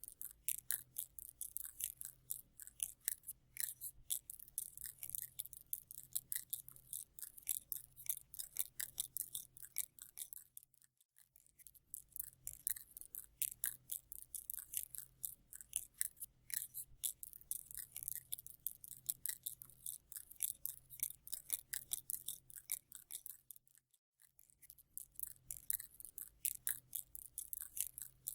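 Spider sound effect: rapid, irregular dry clicking and crackling, mostly high-pitched, over a faint low hum. It cuts out briefly about eleven seconds in and again near twenty-four seconds, then starts over as a loop.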